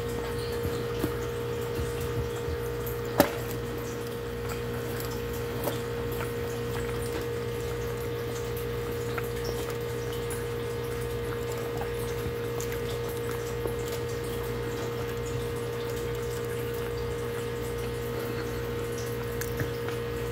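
A steady machine hum, a low drone with a couple of fixed tones over it, with a few faint ticks and one sharp click about three seconds in.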